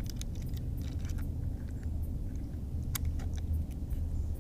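Small clicks and light rattles of hands clipping a crappie onto a handheld fish scale, the sharpest click about three seconds in, over a steady low rumble.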